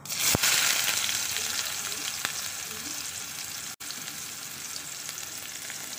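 Chopped onion dropped into hot oil with cumin seeds in a kadhai, hitting the oil with a sudden loud sizzle that then eases into a steady frying hiss.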